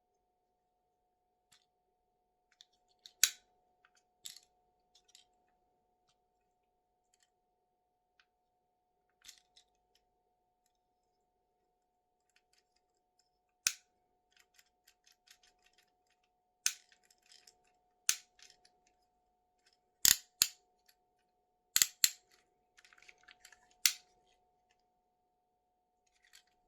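Toy packaging being handled during an unboxing: irregular sharp snaps and clicks with soft crackling between them, the loudest snaps clustered in the second half.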